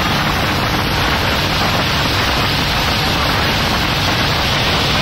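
Thames Clipper river boat underway: a steady rushing of water and wind over a low, even engine drone.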